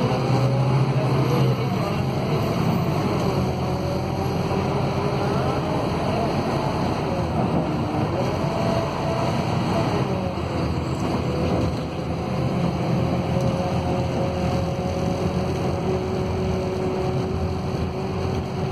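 Scania K280UB city bus under way, heard from inside the passenger cabin: the rumble of its DC09 five-cylinder diesel with a whine that rises and falls in pitch as the bus speeds up and eases off, then holds steady at cruising speed in the second half.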